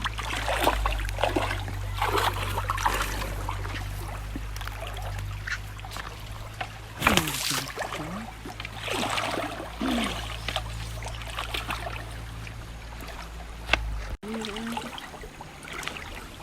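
Shallow river water splashing and trickling in irregular bursts, over a steady low hum that stops suddenly near the end.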